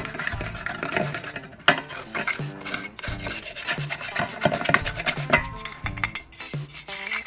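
Repeated scraping and rubbing on the parts of a vacuum cleaner motor as they are cleaned, in quick irregular strokes.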